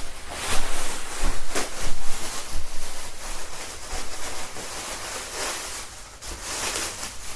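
Continuous rustling and scuffing from handling a gaming-chair cushion, with several short sharp rustles in the first couple of seconds.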